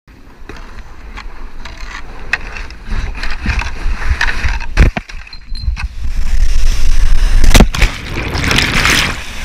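Plastic whitewater kayak hull scraping and rumbling as it slides down a bare rock slab, with sharp knocks. Rushing water near the end.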